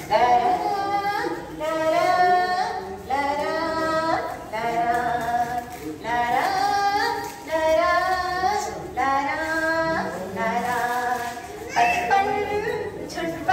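A woman singing a lullaby, in long drawn-out phrases with sliding notes.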